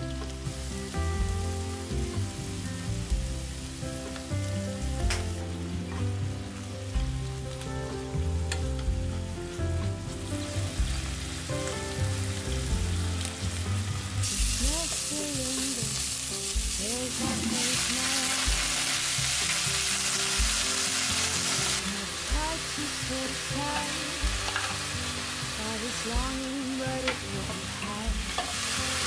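Sliced beef with onion, scallions and chili sizzling in a frying pan as it is stir-fried with tongs. The sizzle grows louder about halfway through. Near the end, water spinach and mushrooms sizzle as they are stir-fried with a spatula.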